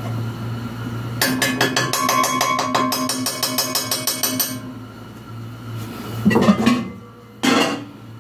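Spoon stirring and scraping in a metal cooking pot: a quick, even run of clinks for about three seconds, then a couple of louder separate knocks against the pot near the end.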